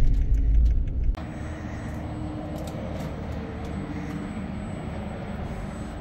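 Low road rumble inside a moving Sprinter cargo van, cut off suddenly about a second in. It gives way to quieter outdoor background noise with a faint steady hum.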